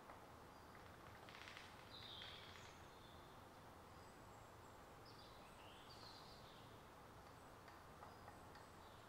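Faint woodland ambience: a steady low hiss with distant small birds chirping a few short high calls, including a brief rapid trill about a second and a half in and calls again around five to six seconds in.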